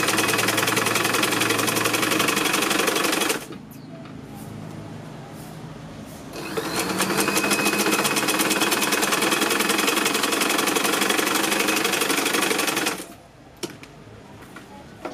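Sewing machine stitching a jacket seam at a fast, steady speed in two runs: it stops a little over three seconds in, starts again and speeds up about three seconds later, then stops near the end.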